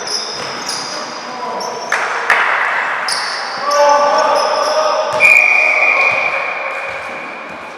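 Basketball game play on a gym court: repeated short high sneaker squeaks and a ball bouncing, with voices shouting. About five seconds in, a long high steady whistle blast starts and runs on, slowly fading.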